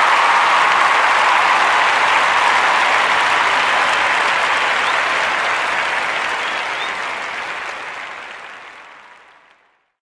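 A dense chorus of many frogs calling together from a muddy puddle, a steady massed chatter that fades out over the last few seconds.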